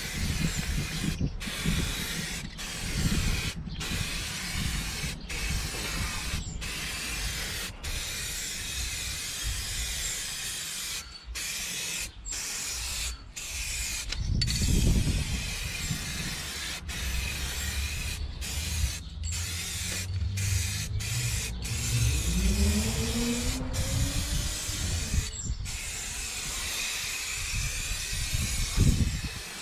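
Aerosol spray can of gloss black wheel paint hissing as a coat goes onto a steel wheel, the spray cutting out for short moments over and over between passes. A low rumble runs underneath, and a rising tone comes in about three-quarters of the way through.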